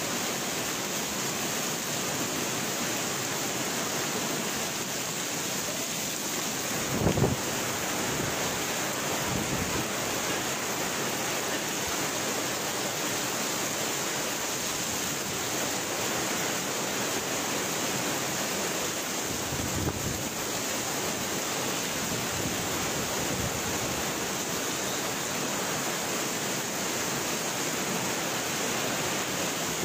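Heavy rain pouring down in a thunderstorm: a steady, dense hiss. About seven seconds in there is a brief low thump, the loudest moment, and a weaker one around twenty seconds.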